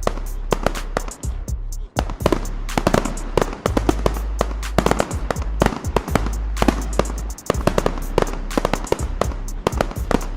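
Fireworks going off: many sharp bangs and cracks at irregular intervals, some in quick clusters, over a steady low drone.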